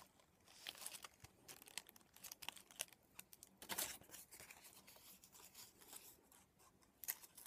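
Faint rustling and crinkling of die-cut paper flower petals being handled, a run of short, soft scrapes with a slightly louder rustle about four seconds in.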